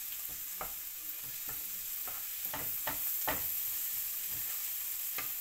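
Minced garlic sizzling in olive oil in a frying pan as it is sautéed to brown, with a wooden spatula stirring it and scraping and tapping against the pan at irregular intervals.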